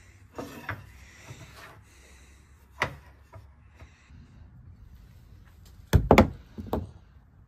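Knocks and clatter from handling a wooden tiller handle and workshop parts, with a sharp tap about three seconds in and a cluster of loud thumps and clanks about six seconds in.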